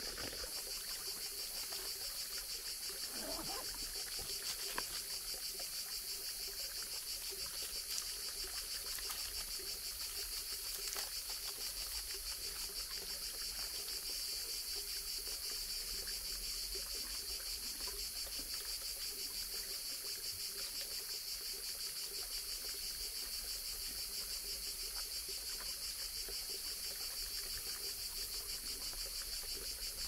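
Steady, high-pitched chorus of insects: a dense, fast-pulsing drone that does not let up.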